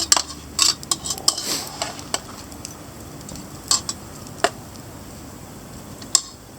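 Metal cooking utensils clinking and scraping against cookware while meat is turned over the fire, with about eight sharp, irregularly spaced clinks.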